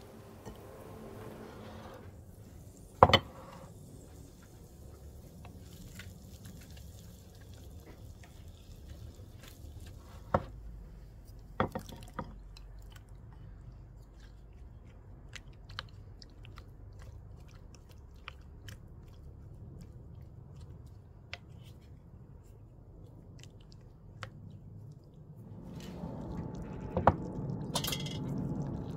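Soft, wet cutting and squishing of ripe tomatoes with a knife and a spoon in a ceramic bowl, with scattered ticks and a few sharp clinks of metal against the bowl. Near the end a louder, low, steady noise comes in.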